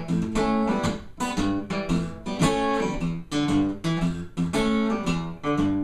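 Acoustic guitar strummed in a steady rhythm, playing a blues accompaniment between sung lines.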